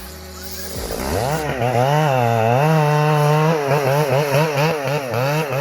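Chainsaw engine revving up about a second in, then running at high revs with its pitch repeatedly dipping and recovering, the way a saw does as the chain bites into wood.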